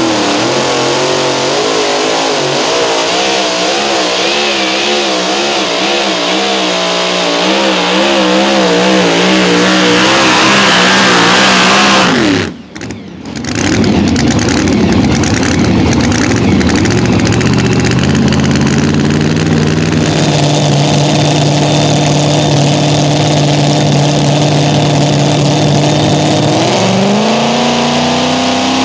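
Supercharged super modified two-wheel-drive pulling trucks running at full throttle. The first truck's engine note wavers up and down and gets louder before cutting off abruptly about twelve seconds in. Later a second truck's engine holds a steady note, then revs up rising near the end as it starts its pull.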